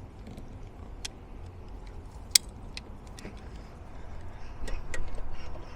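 Scattered sharp metallic clicks of pliers jaws knocking and slipping on the brass fuel inlet spigot of a Weber carburettor, which is not gripping. The sharpest click comes a little past halfway through.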